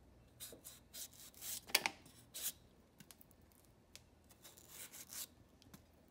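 Kitchen knife slicing the skin off a firm mango in short scraping strokes, the loudest about two seconds in, then lighter strokes and faint ticks.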